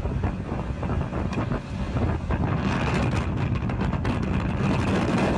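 Wind buffeting a phone's microphone, with road and truck noise from a car riding on the flatbed of a moving tow truck. The rushing grows louder and harsher about three seconds in.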